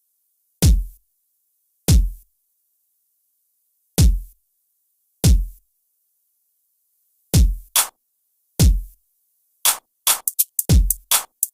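Electronic drum-machine kick, 808-style, hitting alone at uneven gaps of one to two seconds. Each hit is a deep thump that drops quickly in pitch. Near the end the hits speed up into a rapid roll, a build-up into the beat.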